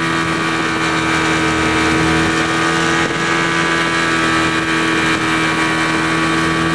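Outboard motor of a ski tow boat running steadily at speed, holding one constant pitch, over the hiss of the hull and wake on the water.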